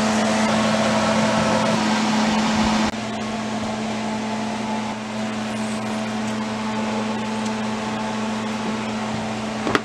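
Steady mechanical hum with an even hiss, dropping a little in level about three seconds in.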